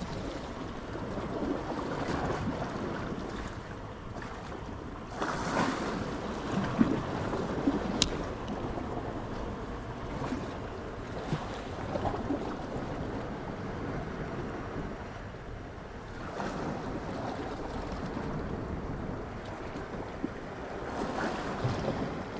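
Sea waves washing and breaking on a rocky shore in slow surges, with wind buffeting the microphone. A single sharp click about eight seconds in.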